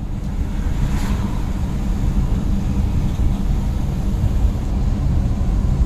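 Steady low rumble of a Volkswagen bus on the move, heard from inside the cab: engine and road noise, swelling up in the first moment. There is a faint click about a second in.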